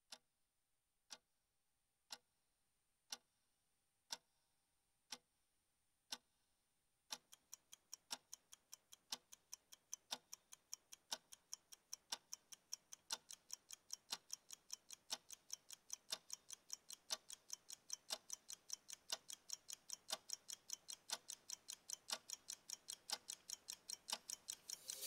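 A clock ticking, once a second at first, then about three ticks a second from about seven seconds in, growing louder toward the end and cutting off suddenly.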